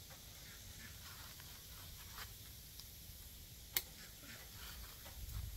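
Snips cutting off a plastic zip-tie tail: one sharp click nearly four seconds in, with a few fainter ticks and a faint low rumble that rises near the end.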